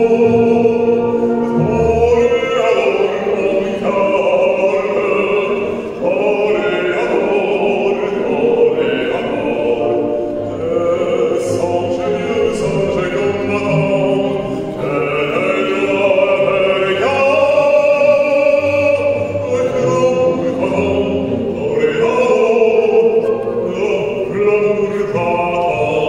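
Opera-style choral music, voices singing long held notes.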